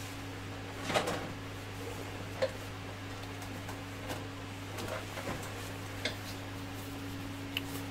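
A few small, sharp clicks and taps of hands handling and positioning 3D-printed plastic printer parts, spread out over several seconds, over a steady low hum.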